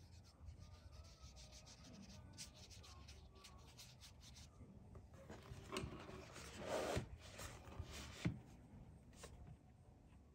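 Faint strokes of a watercolour brush rubbing across paper, with scattered light ticks and a louder swish about seven seconds in.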